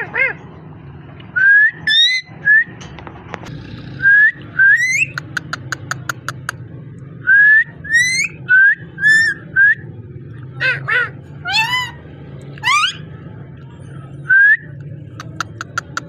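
Indian ringneck parakeet whistling: a string of short upward-sliding whistles, broken by a couple of fast runs of clicks and a few rougher calls in the middle.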